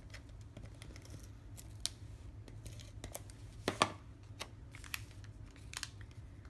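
Hands handling paper and cardstock craft pieces on a wooden tabletop: soft rustling with scattered small clicks and taps, the loudest a sharp click just under four seconds in.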